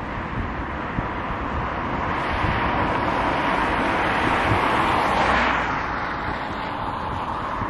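Outdoor traffic noise with wind buffeting the microphone: a vehicle's sound swells to its loudest a little past the middle, then fades.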